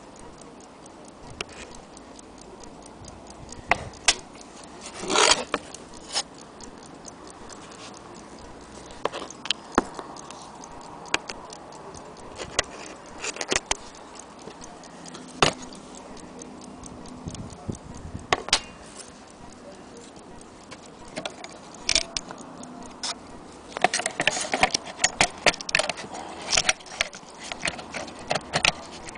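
Vintage Kienzle quartz battery-movement mantle clock ticking, among irregularly spaced sharp clicks and knocks, with a dense cluster of them near the end.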